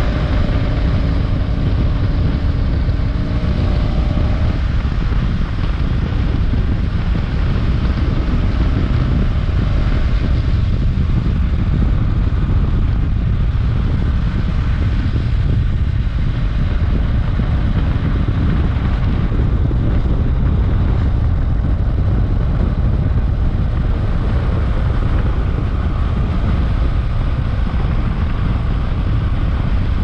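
BMW F800GS parallel-twin engine running through its stock exhaust while riding, under steady wind noise on the microphone.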